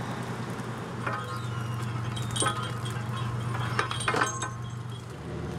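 Trawler's engine running as a steady low hum, with a few short metallic clinks that ring briefly, about a second, two and a half and four seconds in.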